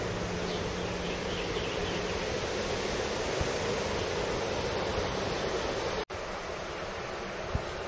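Steady outdoor rushing noise of distant sea surf, with a brief gap about six seconds in.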